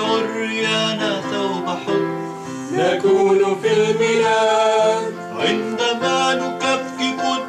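A man singing a slow church hymn over steady held notes of instrumental accompaniment.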